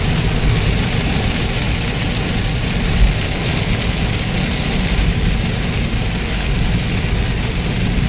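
Inside a car driving through a heavy downpour: a steady rumble of engine and road noise under the hiss of rain and spray on the body and windshield, with a brief thump about three seconds in.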